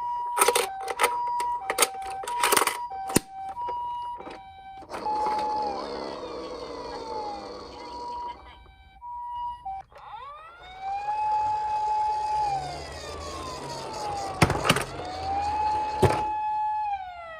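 Japanese-style ambulance two-tone hi-lo siren alternating, broken by sharp clicks and knocks, then a rushing rolling noise. After that a wailing police-car siren rises, holds and falls twice over the noise, with two loud knocks near the end.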